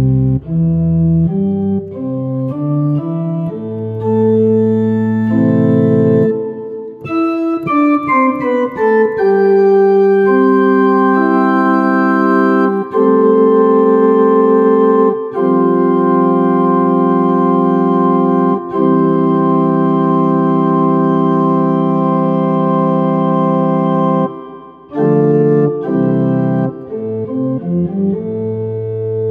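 Yamaha Clavinova CVP-403 digital piano's pipe organ voice playing chords, low in the register at first, then a quick upward run about seven seconds in, followed by long sustained chords and a few shorter ones near the end.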